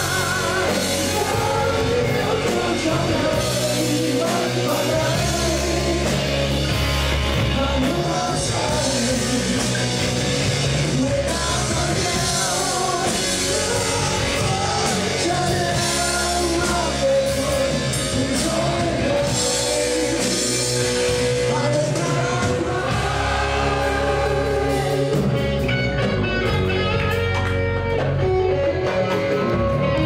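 Live rock band playing: a man singing into a microphone over electric guitars and a drum kit.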